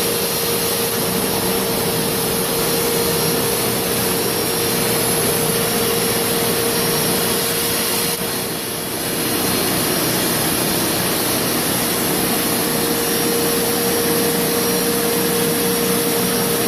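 Rug Doctor Deep Clean carpet cleaner running as it shampoos and extracts carpet: the suction motor gives a steady high whine over rushing air. The level dips briefly about halfway through.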